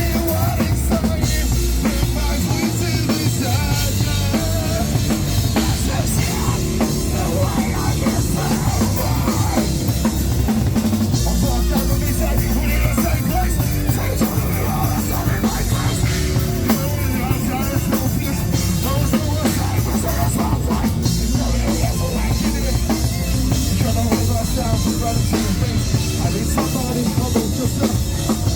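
Live rock band playing loud and steady, the drum kit driving it with a heavy bass drum.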